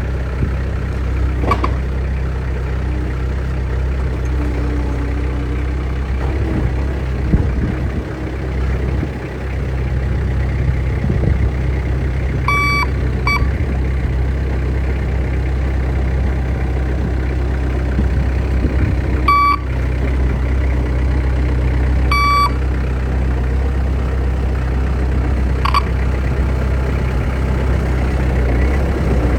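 Bobcat 763 skid-steer's diesel engine running steadily. A short electronic beep sounds about six times at uneven intervals.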